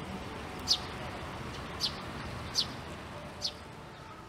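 A bird calling: four short, high, sharp notes, each dropping quickly in pitch, spaced about a second apart.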